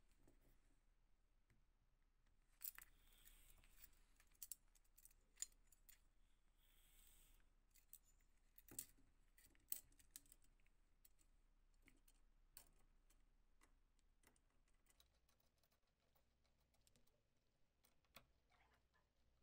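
Faint scattered clicks and light metal taps from a chrome slide switch being fitted to a steel flashlight body and screwed down with a small screwdriver, with a couple of brief scratchy rubs a few seconds in.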